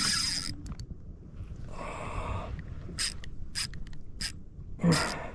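Fishing reel being worked while jigging: its gears whir in short spurts with a few sharp clicks, and a louder knock near the end.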